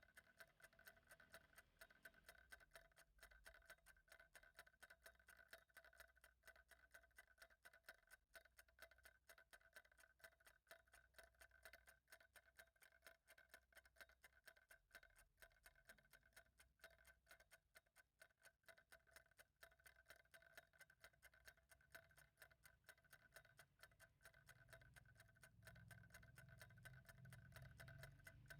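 Clock ticking faintly in a rapid, even rhythm over a faint steady tone, with a low rumble rising in the last few seconds.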